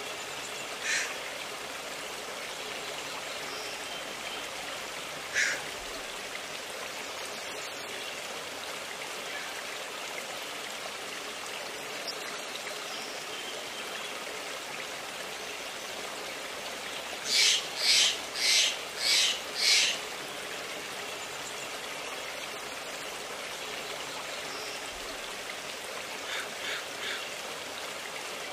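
Steady rushing of a stream, with a bird calling over it: single calls near the start and about five seconds in, a loud run of five calls about two a second roughly two-thirds of the way through, and three fainter calls near the end.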